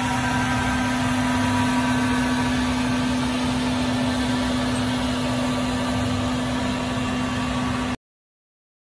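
Battery-powered Tennant T600 walk-behind floor scrubber running: a steady electric hum with a constant low tone from its scrub-brush and vacuum motors. It cuts off suddenly near the end.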